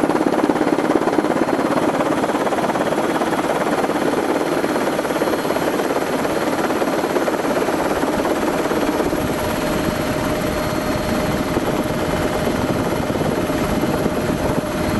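Steady engine and airflow noise of an aircraft, heard from inside it. The low rumble grows stronger about halfway through, and a steady hum joins around nine seconds in.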